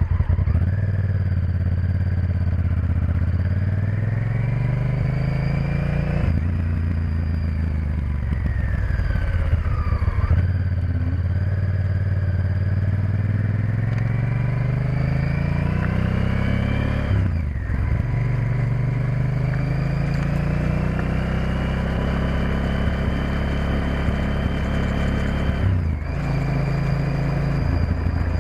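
Honda Varadero XL1000's V-twin engine pulling away and accelerating up through the gears. Its pitch climbs in each gear and drops back at each of several gear changes.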